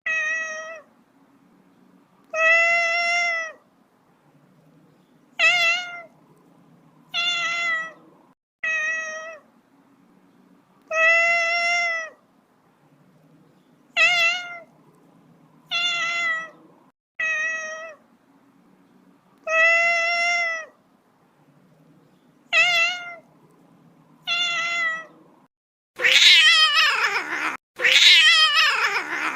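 Kitten meowing repeatedly, about a dozen short high calls spaced a second or two apart. Near the end come two longer, louder, wavering yowls.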